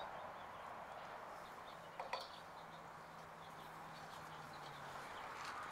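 Quiet outdoor background with faint bird chirps, and one light click about two seconds in from small brass pipe fittings being handled.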